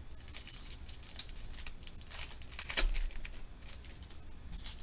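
Foil Pokémon booster pack wrapper crinkling and being torn open by hand: a run of quick, uneven crackles, loudest about three seconds in.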